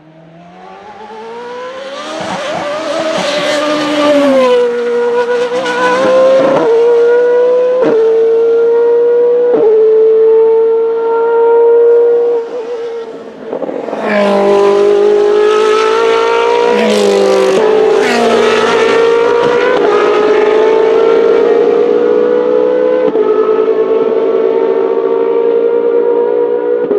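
Formula Renault 3.5's 3.4-litre V8 racing engine accelerating hard, revs climbing high with quick upshifts a second or two apart. About twelve seconds in it briefly lifts off, then pulls again through more upshifts and holds at high revs.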